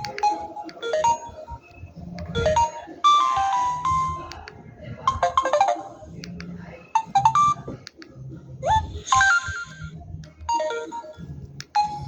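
Samsung GT-C3053 mobile phone ringtone playing: a melody of short, bright electronic notes in phrases with brief pauses, one note sliding upward about nine seconds in.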